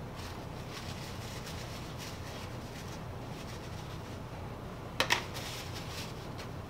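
Light ticks and rustling as disassembled steel lathe chuck parts are handled and wiped, with one sharp clack of a part about five seconds in, over a steady low hum.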